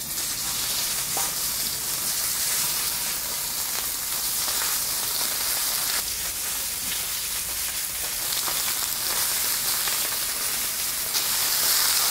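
Thick slabs of pork neck sizzling in hot oil on a cast-iron cauldron-lid griddle, the fat searing hard. The sizzle starts suddenly as the meat goes on and runs steadily, with a few faint clicks of metal tongs and a little louder near the end.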